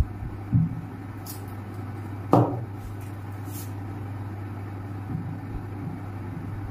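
Steady low hum of room noise, with faint strokes of a marker on a whiteboard a little over a second in and again around three and a half seconds. A short knock comes just past two seconds.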